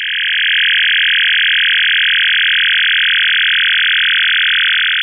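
Steady electronic buzzing drone in the upper-middle range, swelling up over the first second and then holding level.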